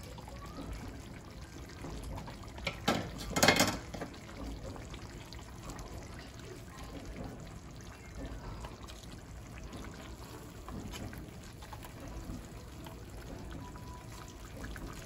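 A wooden spoon stirring lamb and onions in oily, simmering broth in a clay tagine, the liquid sloshing and trickling. A brief louder burst of stirring noise about three seconds in.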